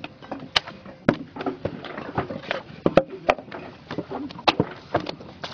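Sharp, irregular knocks of paving bricks being set and knocked into place by hand, about three a second.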